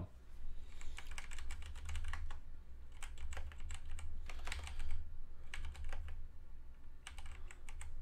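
Typing on a computer keyboard: quick runs of keystrokes broken by short pauses, over a steady low hum.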